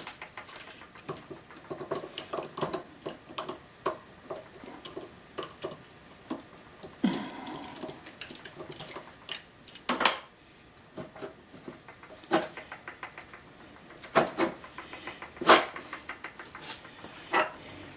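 Irregular metallic clicks, taps and clinks of hand tools on the lathe's pulley and drive rod, as the pulley is loosened and the parts are handled, with a few sharper knocks in the second half.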